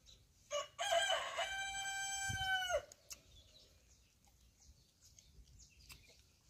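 A rooster crowing once, starting about half a second in: short opening notes, then a long held note that drops away at the end, about two seconds in all.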